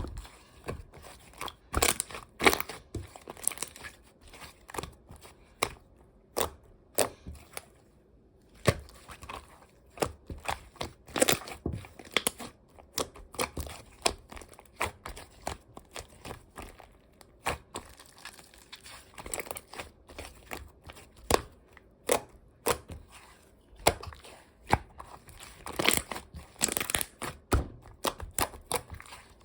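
Slime being squished, stretched and mixed by hand, giving irregular sharp clicks and crackles with no steady rhythm.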